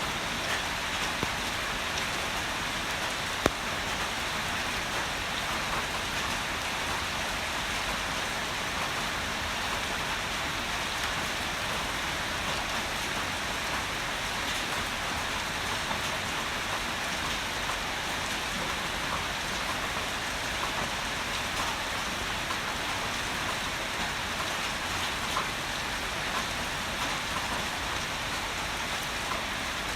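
Heavy rain falling steadily, an even hiss of drops on surfaces, with one sharp tick about three and a half seconds in.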